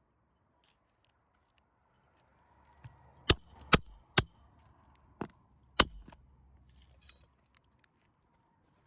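Five sharp hammer strikes on roofing nails, three in quick succession and then two more, driving nails into an asphalt shingle, with faint scraping around them.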